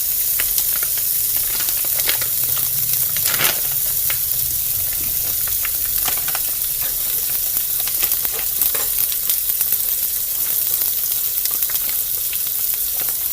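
Frozen dumplings (potstickers) frying in hot oil in a skillet: a steady sizzling hiss with scattered small crackles and pops.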